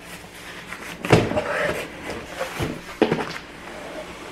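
Cardboard shipping box being handled: knocking and scraping of cardboard as a nested inner box is worked out of it, with two sharp thumps, one about a second in and one about three seconds in.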